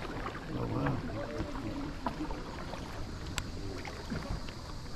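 Kayak moving over calm water: small splashes and drips from the paddle and the odd light knock. Faint voices of other people carry across the water.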